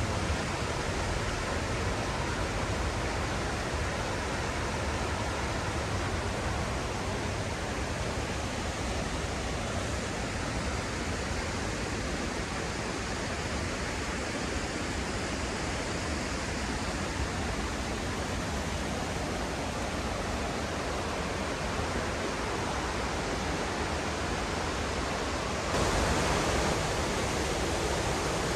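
Rushing water of the Oirase mountain stream, a steady, even rush that steps up louder near the end.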